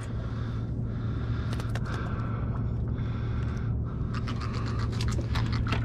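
A steady low mechanical hum from the boat, with scattered light clicks and ticks from handling fishing tackle and a small caught bait fish.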